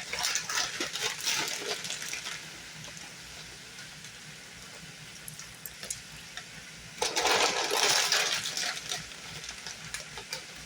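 A seasoning shaker being shaken over a pan of cooking steak: a rattly burst at the start and a louder, longer one about seven seconds in. A steady sizzle from the pan runs underneath.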